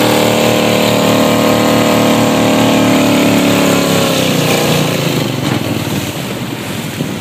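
Motorboat engine running steadily, then throttled back about four seconds in, its pitch falling away as the boat slows. Water splashing and wind noise are left near the end.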